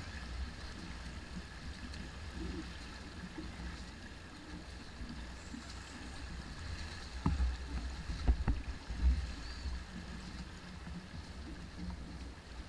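Water rushing and gurgling along a Hobie 16 catamaran's hull under sail, with wind gusting on the microphone. A couple of sharp knocks stand out past the middle.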